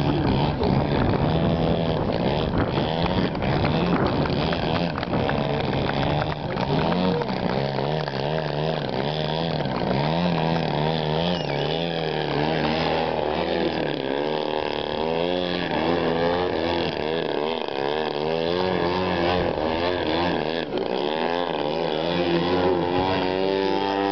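Engine of a radio-controlled aerobatic model airplane running hard, its pitch rising and falling over and over as the throttle is worked to hold the plane hanging on its propeller. It settles into a steadier note near the end.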